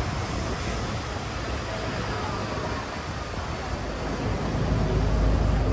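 Traffic noise from a moving double-decker bus: a steady low rumble of the bus running, with street noise, swelling louder near the end.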